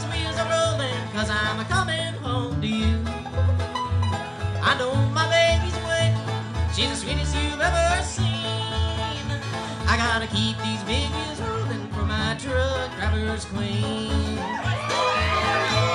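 Live bluegrass band playing, with banjo, acoustic guitar and bass under a man singing lead. Near the end a fiddle comes in with wavering, sliding bowed notes.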